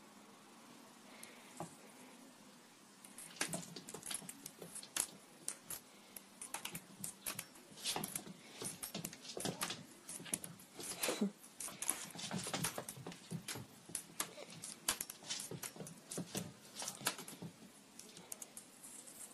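Quick, irregular clicks and taps of a cat's claws and paws on a hardwood floor as it leaps and scrambles about, starting about three seconds in.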